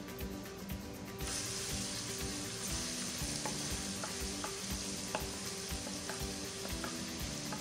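Minced garlic frying in hot olive oil in a pan: a steady sizzle that starts suddenly about a second in, stirred with a wooden spoon, with a few light ticks.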